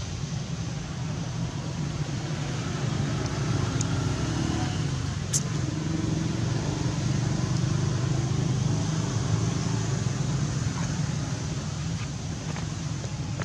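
Steady low outdoor rumble with no clear pitch, with a single sharp click about five seconds in.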